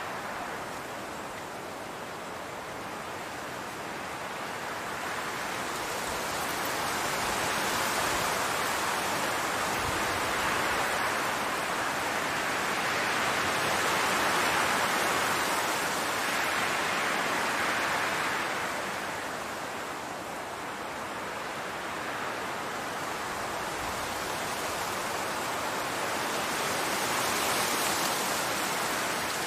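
Wind blowing across a field of tall grass, a steady rushing hiss with no distinct events. It swells slowly in gusts, loudest in the middle and again near the end.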